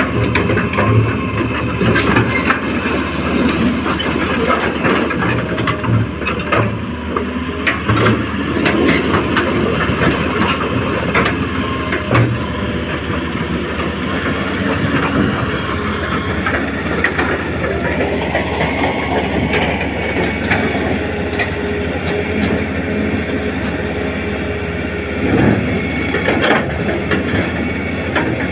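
Radio-controlled model excavator working sand: steady whine of its small motors and gearboxes, with scattered clicks and knocks throughout.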